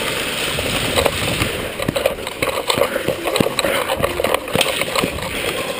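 Hurried footsteps on a concrete floor with gear clattering, heard as a run of irregular knocks over a rustling hiss of movement.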